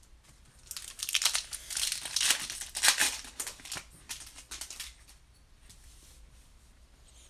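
Shiny foil wrapper of a 2019 Bowman Platinum baseball-card pack being torn open and crinkled by hand. It starts about a second in and dies away about five seconds in.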